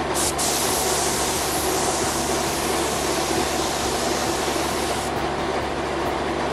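Gravity-feed paint spray gun hissing as it sprays paint onto a steel frame. The hiss is bright from just after the start until about five seconds in, when the trigger is released, over a steady mechanical drone.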